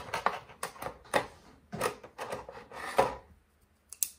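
Clear plastic packaging tray crackling and clacking as a mini tripod is pulled out of it, in a quick series of sharp crinkles over about three seconds, then a couple of light clicks near the end.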